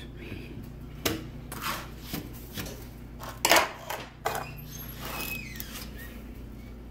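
Kitchen utensils and dishes knocking and clinking against each other and the stainless-steel sink, a series of separate knocks with the loudest about three and a half seconds in, and a short high squeak around five seconds in.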